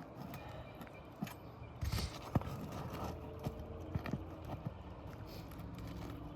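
Metal roofing tool scraping and knocking under asphalt shingles as the nails are pried out of a damaged shingle: scattered sharp clicks and knocks, the loudest about two and a half seconds in, over low scraping.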